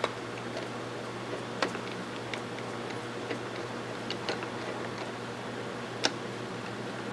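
Sparse light clicks and taps of small steel parts of a Mossberg 464 lever-action rifle being handled and fitted during reassembly of its action, with a sharper click about six seconds in. A steady faint low hum runs underneath.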